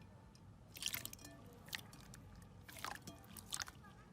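Slime being squeezed and pressed by hand, giving a few short crackly, crunchy squishes about a second apart.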